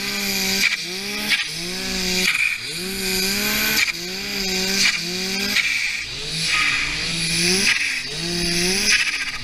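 Snowmobile engine revving up and falling back over and over, roughly once a second, as the throttle is worked through deep powder. A steady hiss of snow and wind runs underneath.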